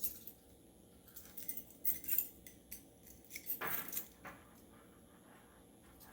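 Small metal clicks and scrapes as a skeleton key, cut down from the lock's own key, is pushed into a warded padlock and worked in the keyway. A longer scrape comes a little past halfway. The key will not turn the lock open.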